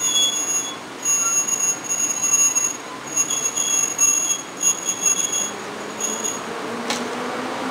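EP07 electric locomotive pulling a passenger train away from the station, with intermittent high-pitched squeals. About five seconds in a low whine begins to rise as the train gathers speed, and there is a single sharp click near the end.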